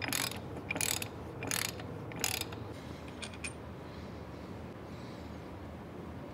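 Ratchet wrench clicking through four back-strokes about 0.7 s apart while tightening the castle nut on the tractor's tie rod ball joint, followed by two light metal clicks.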